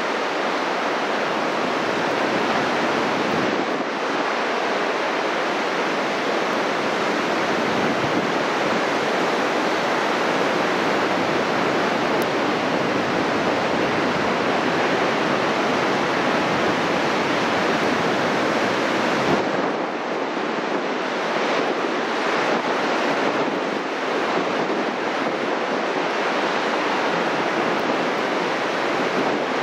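Heavy storm surf breaking and washing up a beach in a nor'easter: a continuous, loud wash of noise. Wind adds a low rumble on the microphone for a stretch in the middle.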